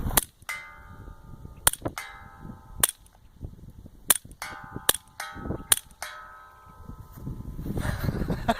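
Suppressed Colt 1911 Commander in .22 Long Rifle firing several single shots a second or more apart: each is a sharp crack and clack of the slide cycling, some followed a moment later by the clang and ringing of a steel target being hit. The action and the target strike are louder than the shot itself.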